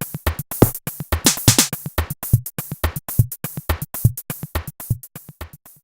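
Electronic music with a fast drum-machine beat: steady low kick thumps and high hat-like hits. It fades in the last second and stops.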